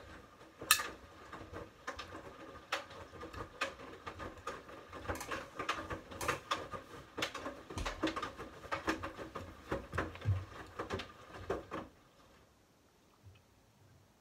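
Front-loading washing machine turning its drum mid-wash: wet hoodies and water slosh and slap inside over a steady motor hum. The drum stops about twelve seconds in.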